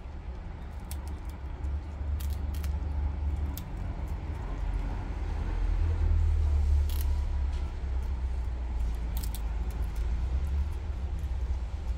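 Two prairie dogs nibbling apple wafers: scattered small crisp crunches and clicks over a steady low rumble.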